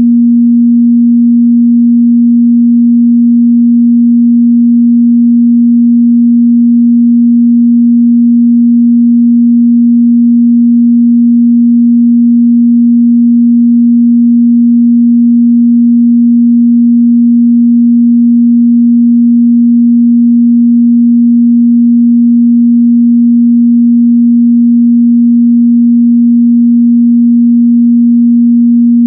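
A steady 237 Hz sine-wave test tone, one pure mid-bass hum held at constant pitch and level.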